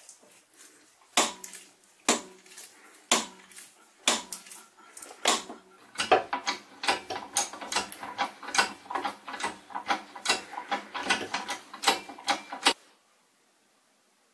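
Keyway broach being pressed through a toothed timing-belt pulley: sharp metallic cracks and clicks as the broach teeth cut. A few come about a second apart at first, then a rapid run from about six seconds in that stops abruptly near the end.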